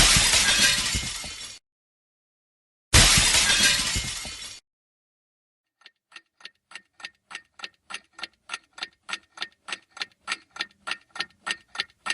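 Glass shattering twice, each crash sudden and dying away over about a second and a half. Then, from about six seconds in, a clock ticking steadily, about three ticks a second, growing louder.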